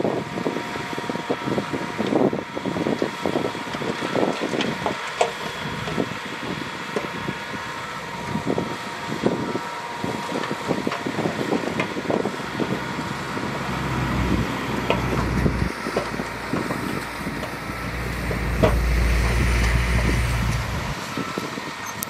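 Heavy earthmoving machinery at work: a diesel engine running, with many clanks and knocks in the first half, then a deep engine rumble that builds and is loudest near the end.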